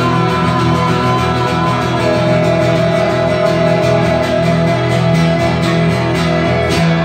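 Live acoustic guitars strumming steady chords while a man's voice holds one long wordless sung note, with a few hard strums near the end as the song closes.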